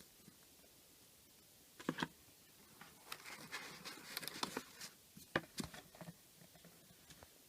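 Watch box and packaging being handled during an unboxing. There is a knock about two seconds in, a stretch of crackly rustling, and a sharp click about five and a half seconds in.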